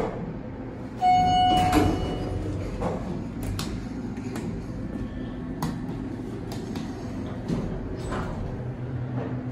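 Kone elevator cab: a single electronic tone about a second in, held for about a second and a half, then a scatter of light clicks from the car operating panel's buttons being pressed, over a low steady hum.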